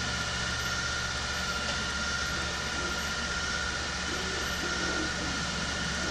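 Steady room noise: an even hiss with a constant low electrical hum and a thin steady whine, with no distinct event.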